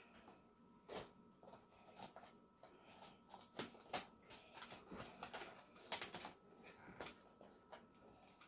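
Scissors snipping at tape on a cardboard toy box: faint, short, irregular snips and clicks, about one or two a second, with the rustle of the box being handled.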